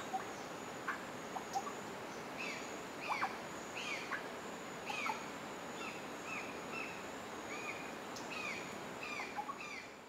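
Forest ambience: a steady high-pitched insect drone, with a bird giving a run of short down-slurred notes, about two a second, from about two seconds in. A few sharp clicks come in the first two seconds.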